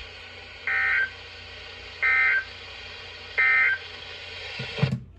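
Emergency Alert System end-of-message data bursts on NOAA Weather Radio: three short, identical two-tone digital bursts about 1.3 seconds apart over steady radio hiss. They signal the end of the severe thunderstorm warning message.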